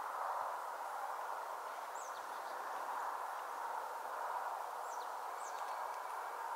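A few faint, high, falling bird chirps, one about two seconds in and two close together around five seconds, over a steady mid-pitched background hiss.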